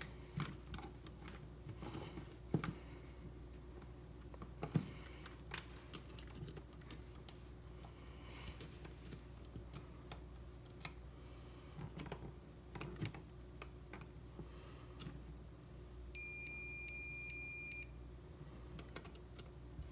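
Faint scattered clicks and taps of tester leads and wires being handled, then near the end a steady high-pitched beep lasting about two seconds from a multimeter on its continuity setting, the sign that the probes have found a closed circuit.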